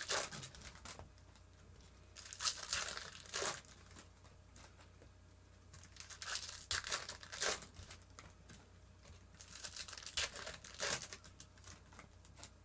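Trading-card pack wrappers being torn open and crinkled by hand, in several short bursts of crackling a few seconds apart.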